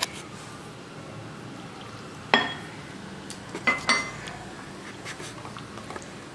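A fork stirring flour-and-water batter in a bowl, with sharp clinks of the metal fork against the bowl's side: one about two seconds in and two more in quick succession a second and a half later.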